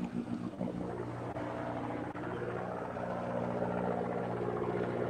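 A fishing boat's engine running with a steady low drone.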